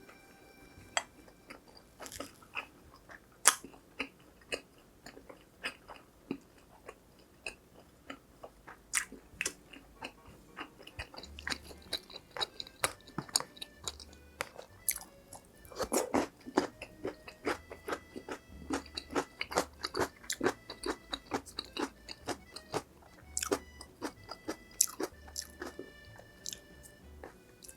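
Crunching and chewing of crispy fried food, with many sharp, irregular crunches that come thicker from about ten seconds in.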